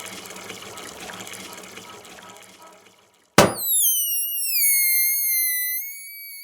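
A rushing, water-like noise fades away over about three seconds. Then a sharp click, and a high whistling tone that slides down and holds, wavering slightly.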